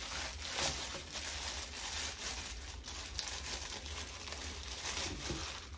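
Plastic packaging bag crinkling and tearing as it is pulled open by hand, in uneven crackles with the loudest rip about half a second in.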